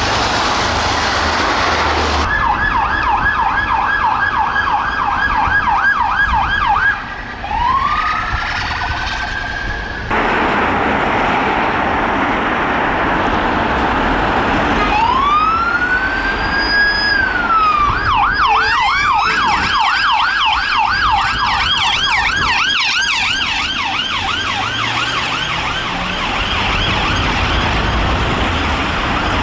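UK police car sirens in street traffic: a fast yelp that switches to a slow rising wail, breaks off abruptly about ten seconds in, then a wail that rises and falls before switching back to the fast yelp. In the second half a second, higher-pitched siren yelps alongside the first, over steady road traffic noise.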